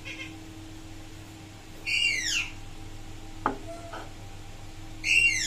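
A bird calling twice, each call a short falling screech about half a second long, the two about three seconds apart, over a faint steady hum. A light knock sounds about three and a half seconds in.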